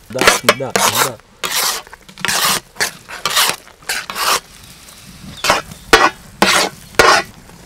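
A metal masher scraping and pressing across a large iron griddle as pav bhaji vegetables are mashed: about a dozen short, rough scrapes with a brief pause in the middle.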